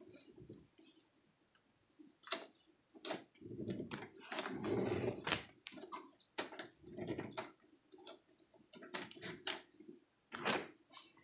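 Irregular clicks and light knocks, with a longer, denser stretch of rattling noise about four to five seconds in.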